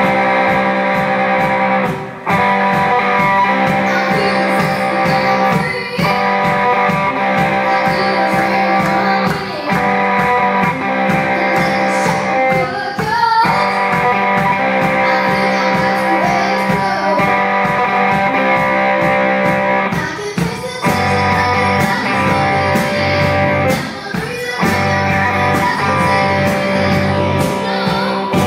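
Live pop-rock band playing: strummed electric guitar over a steady drum beat, with a singer's voice in the mix. A deeper bass line comes in about two-thirds of the way through.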